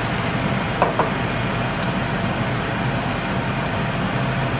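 Pork intestines braising in a frying pan, giving a steady sizzling hiss, with two brief squeaks about a second in.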